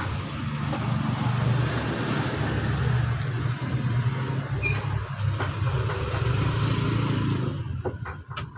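A motor vehicle's engine running steadily, then fading away near the end.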